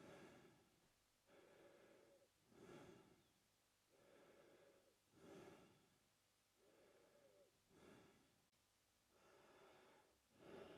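A man breathing through his mouth, slow and even. The softer, longer half of each breath alternates with a shorter, louder one, about four full breaths in all.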